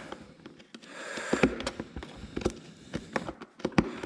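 Hand cutting or trimming work on a part, heard as a run of irregular sharp clicks and snaps with a short scraping hiss about a second in.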